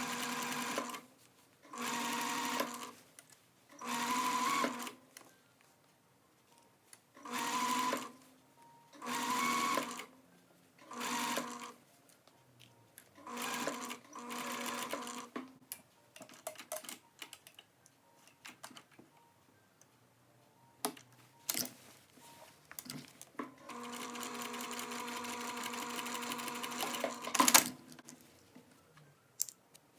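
Domestic sewing machine stitching in short runs of about a second, seven times, with a short pause between each run, as when edge-stitching a shirt cuff. Then come a few light clicks, and then one longer steady run of about three and a half seconds that ends in a sharp click.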